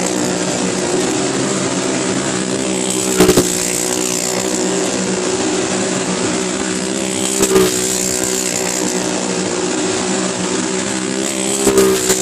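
Motor vehicle engine running steadily as it circles the wooden wall of a well-of-death drum. It swells briefly three times, about every four seconds, as it passes close.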